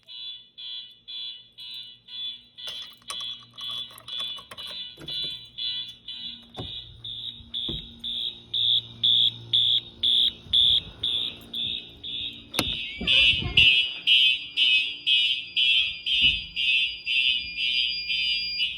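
Fire alarm horns sounding in a fast, even pulsing pattern after a pull station is pulled. About two-thirds of the way through, a sharp click comes and the pulsing grows louder, with a thin, higher steady tone added over it.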